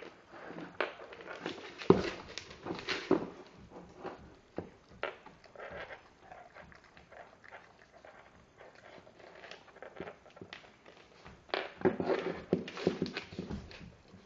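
Rottweiler chewing and gnawing a raw knuckle bone: irregular wet chewing and teeth scraping on bone. The chewing is busier near the start and again near the end, sparser in between, with one sharp knock about two seconds in.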